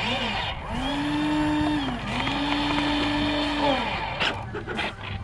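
Electric motor of a homemade robotic excavator whining. After a brief short run it spins up, holds a steady pitch and winds down twice in a row, with a few clicks and knocks near the end.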